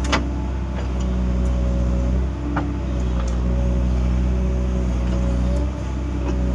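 Excavator's diesel engine running steadily under work, with a sharp clank near the start and another about two and a half seconds in.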